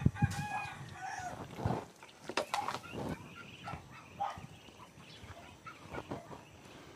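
Flock of white Muscovy ducks feeding at a metal pan: many short bill knocks and dabbling sounds, a sharp knock right at the start, and a few short calls in the first second or so.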